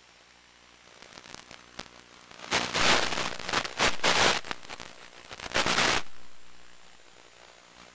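Crackling static from an analog FPV video receiver as the radio link breaks up: sporadic crackles build into loud, dense hiss and crackle from about two and a half to six seconds in, then fade out. The static is the sign of the video signal dropping out.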